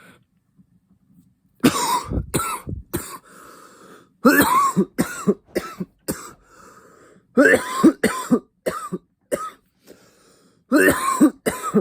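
A man coughing loudly in four fits of several coughs each, with fainter breaths between the fits, after holding in a long vape-pen hit (a 'blinker') that has irritated his throat. The coughing starts a little over a second in.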